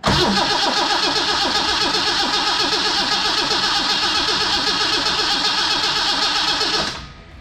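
Holden 173 red straight-six turning over on its starter motor for about seven seconds with an even rhythmic beat, not firing, then stopping suddenly. The engine is cranking without starting because no fuel is yet reaching the carburettor after six years of sitting.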